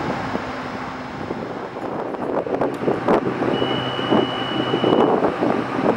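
Wind buffeting the microphone over the steady hum of a stopped TRA EMU800 electric commuter train standing with its doors open. A single steady high tone sounds for about a second and a half in the middle.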